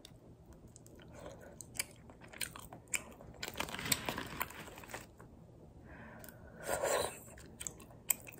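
A person chewing a mouthful of tteokbokki and fried twigim close to the microphone: wet chewing with short clicks and crunches, loudest around four seconds in and again near seven seconds.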